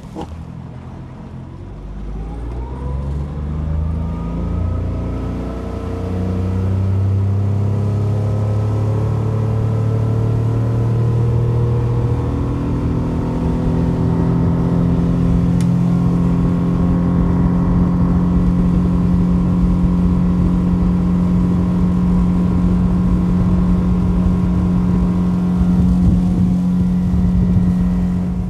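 Small boat's engine accelerating, its pitch rising over about ten seconds, then running steadily at cruising speed.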